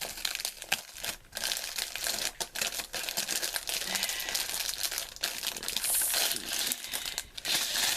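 Packaging being crinkled and rustled as a diamond painting kit is unwrapped, a continuous crackle of small crinkles throughout.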